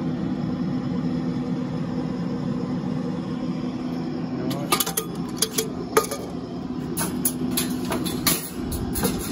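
Steady hum of a running pellet grill. From about halfway on, sharp metallic clanks and rattles as the steel wire rack and perforated metal tray are handled inside the grill.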